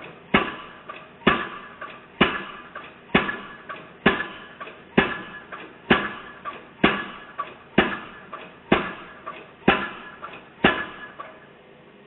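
Excavator-mounted piling hammer driving a steel pile, a sharp metallic clank with a short ring about once a second, twelve blows that stop near the end.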